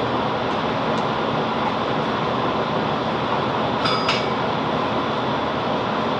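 Steady noise inside a Class 165 Networker Turbo diesel multiple unit, with a brief high metallic squeak and clink about four seconds in.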